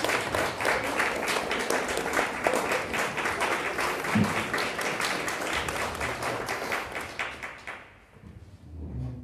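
Audience applauding, the clapping dying away about eight seconds in, followed by a low bump near the end.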